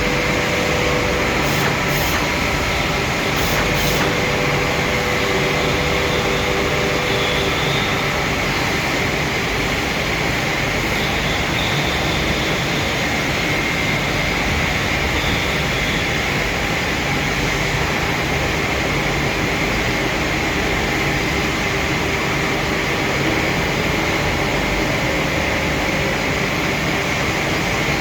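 A machine running steadily: a continuous, even mechanical noise with a hiss centred high and a few faint steady hums, unchanging throughout.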